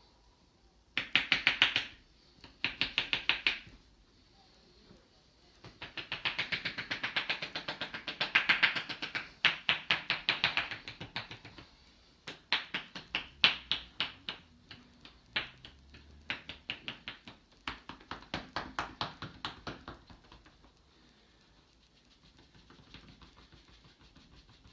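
Percussive barber massage: hands striking the body in fast bursts of about ten slaps a second, then slower, separate slaps and taps in the second half, trailing off near the end.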